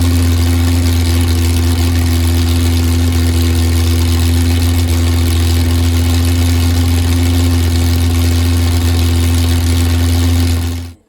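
Chrysler Hemi 265 straight-six with a CNC-ported head running steadily, warming up before an oil change. The sound stops abruptly near the end.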